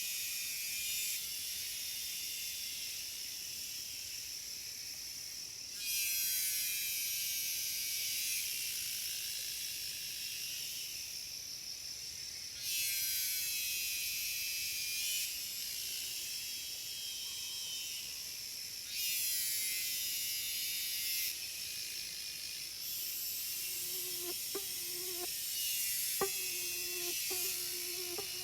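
Cicadas in chorus, a dense high-pitched buzz that swells suddenly several times, about every six seconds, and then settles. Near the end a bird joins with short, low-pitched notes repeated about twice a second.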